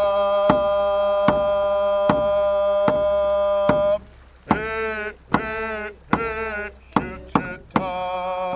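A singer holds one long note for about four seconds, then sings short sliding phrases, over a steady drum beat of roughly one stroke every 0.8 s.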